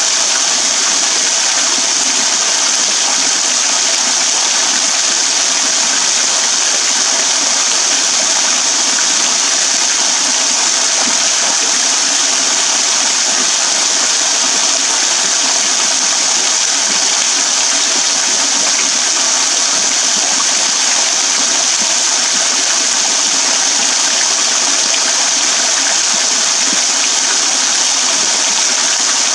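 Small waterfall pouring and dripping off a rock overhang, splashing onto wet ground and into a shallow pool. A steady, even hissing splash that does not change.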